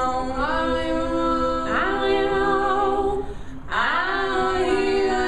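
Several voices singing long wordless held notes in harmony, a cappella. There are three phrases, each sliding up into its note.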